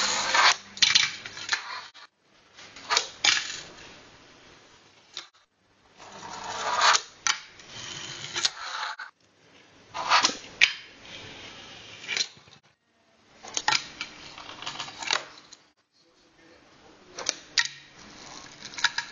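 Fingerboard tricks on a Blackriver fingerboard bench: sharp clacks of the board popping and landing, with the small wheels rolling along the bench in between. The sound comes in several short takes of a few seconds each, broken by brief silences.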